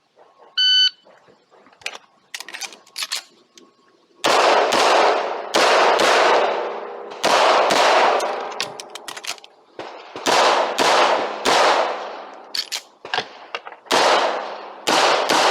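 Electronic shot-timer beep, then a rapid string of handgun shots fired at a practical shooting stage, often in quick pairs, each shot ringing on briefly.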